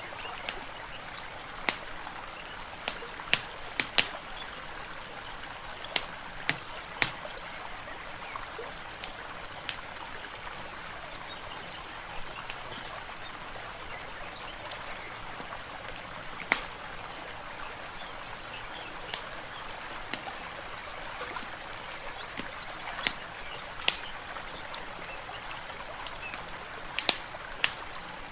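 Steady trickling of flowing water, overlaid with irregular sharp pops and crackles of a wood fire, a pop every second or two, sparser through the middle.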